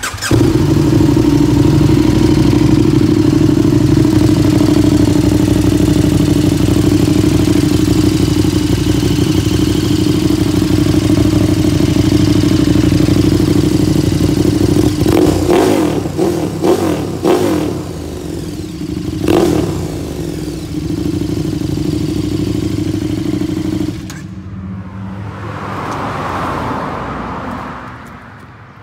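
KTM 1290 Super Duke R's big V-twin engine with an Austin Racing slip-on exhaust starting and idling loudly, with a few quick throttle blips about halfway through. The engine cuts off abruptly near the end, followed by a swelling and fading whoosh.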